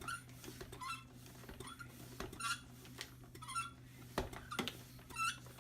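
Bicycle hand pump being worked to inflate a tyre, each stroke giving a short squeak, about one stroke a second. Two sharp clicks come about four seconds in.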